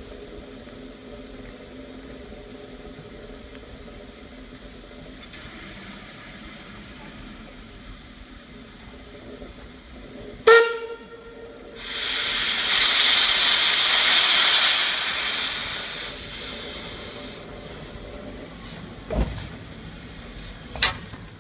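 Mount Lyell No. 3 steam locomotive: a short, loud whistle blast about halfway through, then a loud hiss of escaping steam for about four seconds that fades away. Two sharp knocks follow near the end.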